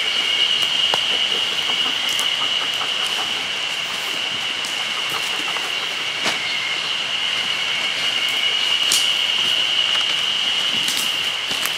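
Campfire crackling with scattered sharp pops, under a steady high-pitched whine that holds throughout.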